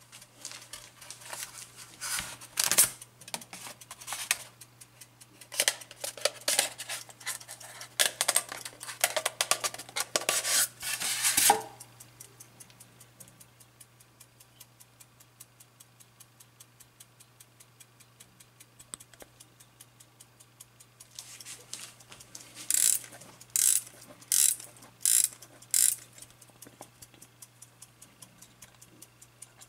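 AChS-1 Soviet aircraft cockpit clock ticking fast and evenly, with loud scraping and rustling from the styrofoam packing and the clock being handled for the first dozen seconds, and another run of loud handling noises about three-quarters of the way through.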